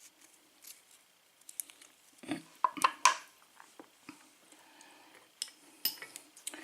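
Small metal clicks and clinks of a pin-tumbler padlock being taken apart by hand as its plug is slid out of the body, in scattered taps with the loudest cluster around two to three seconds in.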